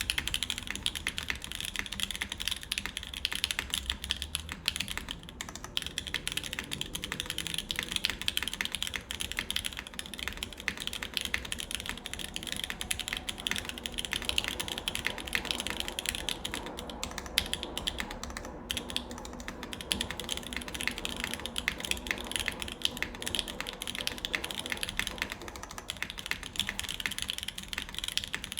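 Steady, fast typing on a Tsukuyomi custom mechanical keyboard with lubed Alpaca linear switches, GMK keycaps and a full aluminum plate: dense keystroke clacks with a brief pause about eighteen seconds in.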